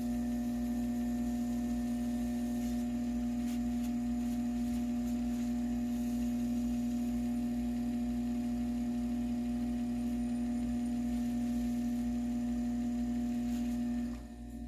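Cue-building lathe motor running at a steady speed, giving an even, high-pitched hum. It switches on at the start and cuts off about fourteen seconds in.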